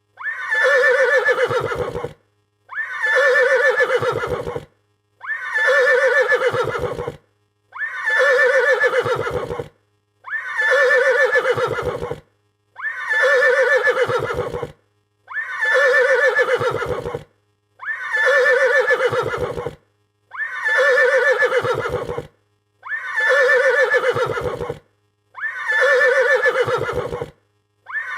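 Horse neighing in fright: the same recorded neigh repeated about eleven times, each call about two seconds long with a short silence between, spaced evenly about two and a half seconds apart.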